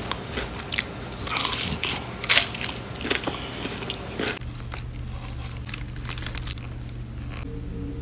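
Crunching bites and chewing of a chocolate s'mores bar, a run of short, sharp crunches. After about four seconds the crunching stops and a steady low hum is left.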